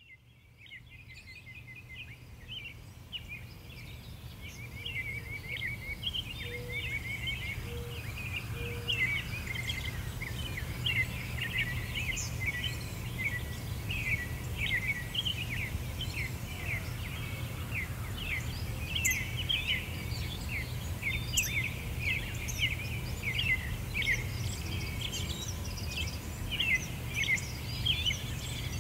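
A dense chorus of many small birds chirping and trilling together over a steady low hum, fading in over the first few seconds.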